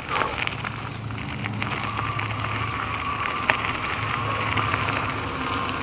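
Bicycle tyres rolling on a gravel road: a steady rushing crunch with scattered small clicks of stones. A faint steady whine comes in about a second and a half in.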